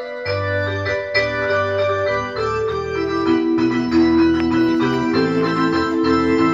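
Electronic keyboard on an organ voice playing sustained chords over a stepping bass line, the introduction to the opening hymn.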